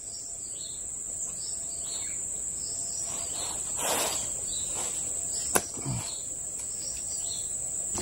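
Steady high-pitched drone of forest insects, with a few faint rustles and one sharp click about five and a half seconds in.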